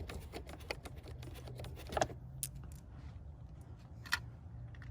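Small metallic clicks and rattles of a hand tool backing out a screw on a car door. There is a quick run of light clicks for about two seconds, then sharper single clicks about two seconds and four seconds in.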